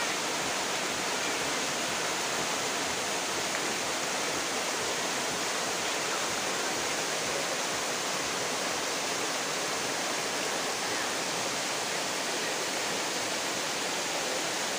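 Small waterfall cascading down rocks: a steady, even rush of water.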